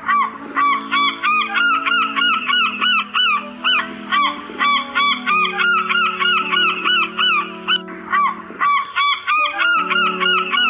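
Geese honking in a rapid, repeated series of calls, about three a second with a few brief pauses, over background music of sustained low chords.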